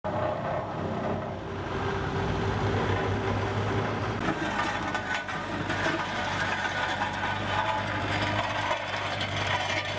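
Engines of road-repair machinery running steadily during asphalt pothole patching, joined about four seconds in by a harsher, hissier sound with fine rapid ticks.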